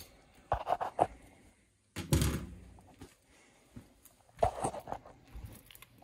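Handling knocks around a gas furnace: a few light knocks, a heavier thud about two seconds in, and another cluster of knocks a little before the end.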